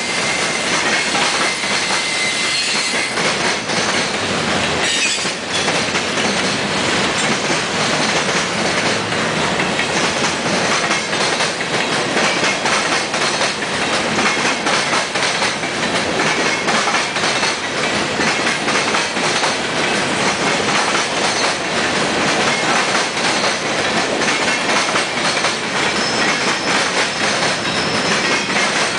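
Union Pacific manifest freight train's cars rolling past close by: steady wheel-and-rail noise with a continuous clickety-clack of wheels over rail joints, and now and then a thin high wheel squeal.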